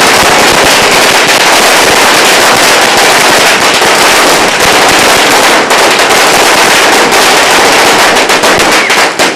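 A long string of firecrackers going off on the ground: a dense, unbroken rattle of very loud bangs that thins into separate cracks near the end.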